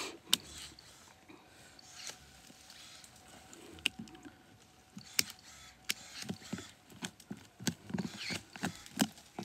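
Hand pruning shears snipping and scraping around a shrub stump's roots in dry soil: irregular sharp clicks and short scrapes, several a second at times.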